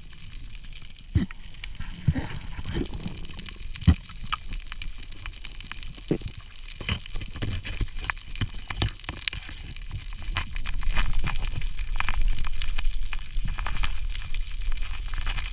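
Underwater sound heard through a submerged camera: a low rushing rumble of moving water, swelling about two-thirds of the way in, with many scattered sharp clicks and taps.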